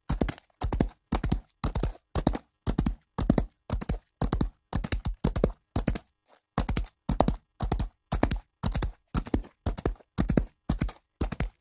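Horse galloping on dirt: hoofbeats falling in quick clusters of two or three, about two clusters a second, with a brief break about halfway through.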